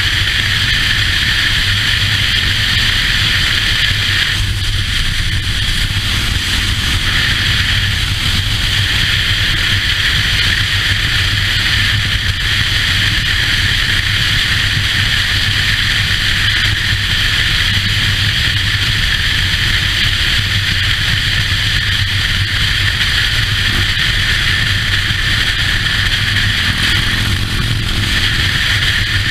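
Motorcycle cruising at steady highway speed: a constant low engine drone under steady wind rush on the microphone.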